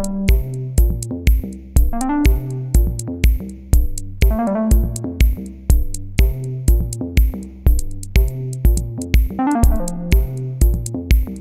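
Electronic background music: a steady drum-machine beat of about two beats a second under synthesizer chords.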